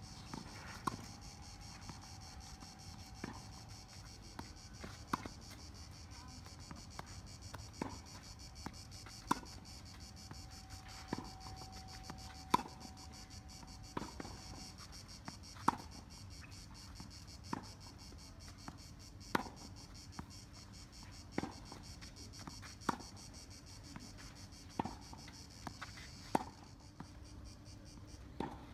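Tennis ball being struck by rackets and bouncing on a clay court: sharp knocks about every one to two seconds through a practice rally. A steady high insect buzz runs underneath.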